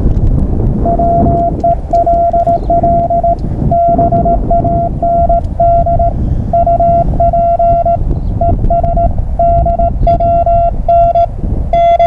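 Morse code (CW) from a portable ham radio transceiver: a single steady tone keyed on and off in dots and dashes, over a constant low rumbling noise.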